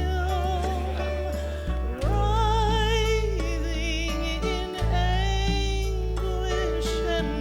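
Recorded gospel hymn music: held bass notes shifting every couple of seconds under a melody line with a wavering vibrato.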